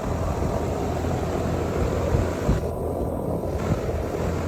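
Lennox Elite 5-ton central air conditioner condenser running steadily: a low hum with the rush of its fan.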